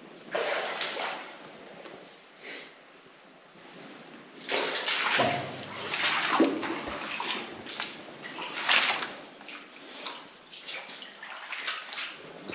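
Footsteps splashing and sloshing through shallow water in uneven bursts, loudest around the middle.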